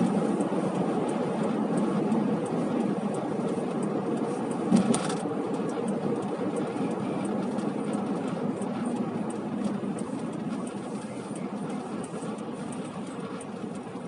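Car moving in city traffic: steady engine and road noise heard from inside the cabin, with a single short knock about five seconds in.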